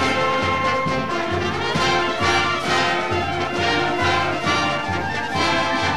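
Brass-led orchestral theme music with a steady beat, as for a sports show's opening titles.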